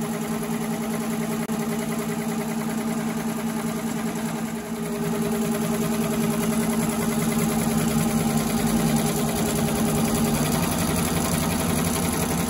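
Multi-needle, multi-head commercial embroidery machine stitching at speed: a fast, even needle rhythm over a steady motor hum.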